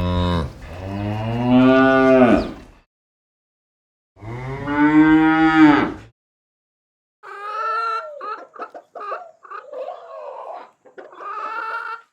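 A cow mooing twice, two long calls of about two and a half and two seconds. From about seven seconds in, it gives way to chickens clucking in short, choppy calls.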